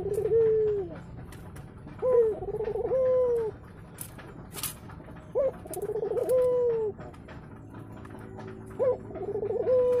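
Ringneck dove cooing repeatedly in its nest basket: about every three and a half seconds a call opens with a short sharp note, rolls through a fast trill and ends in a long falling coo. This is courtship cooing in the nest, which the keeper takes as a sign the pair will soon lay eggs.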